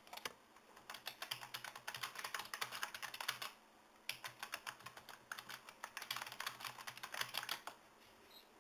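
Typing on a computer keyboard: two runs of quick keystrokes, broken by a short pause about three and a half seconds in.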